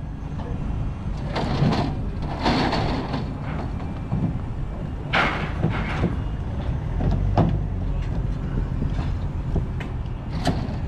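A vehicle engine running low and steady, with several irregular sharp clanks and bangs, like heavy metal parts or doors being handled.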